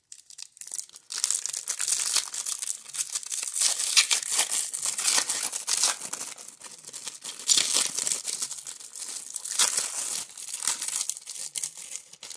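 1994 Topps Stadium Club baseball card foil pack being torn open by hand, its metallic wrapper crinkling in a dense, irregular crackle. It starts about a second in.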